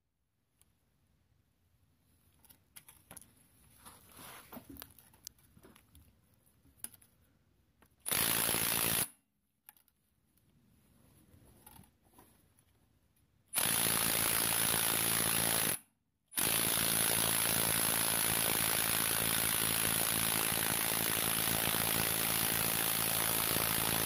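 Cordless impact wrench hammering on a rusty strut shaft nut while the shaft is held with locking pliers. It runs in three bursts: a short one of about a second, then about two seconds, then, after a brief pause, a long continuous run. Quieter handling clicks come before and between the bursts.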